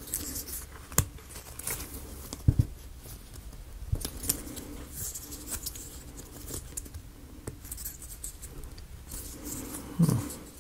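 Wooden model-kit pieces being handled and pressed together: scattered sharp clicks and light scraping of plywood parts, with the loudest click, a quick double one, a couple of seconds in. A brief low hum near the end.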